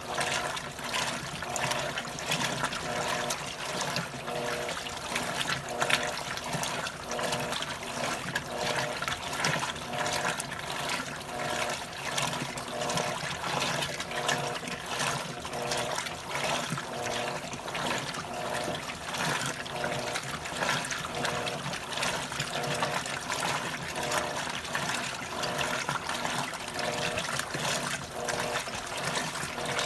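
Electrolux washing machine agitating on its heavy, turbo program: water sloshing in the tub while a motor hum comes and goes in regular pulses about once a second.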